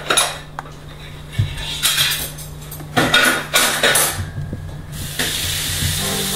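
Scattered clinks and clatters of dishes, then about five seconds in a small countertop TV comes on with a steady hiss, its broadcast sound starting near the end.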